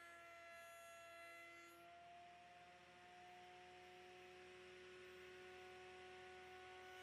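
Faint, steady whine of a table-mounted wood router running at speed, its pitch drifting slightly, with a soft noise rising under it from about two seconds in.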